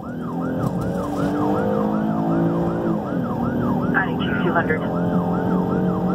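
Emergency vehicle siren in rapid yelp, about three rise-and-fall cycles a second, heard from inside the responding vehicle's cab. Underneath, a steady vehicle hum drops in pitch about three seconds in.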